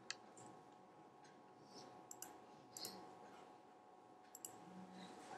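Near silence: quiet room tone with a faint steady hum and a few faint clicks.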